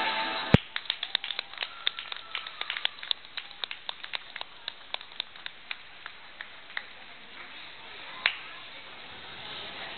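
Routine music cuts off, then scattered applause from a small audience: separate handclaps, quick at first and thinning out over several seconds. A single sharp knock stands out about half a second in.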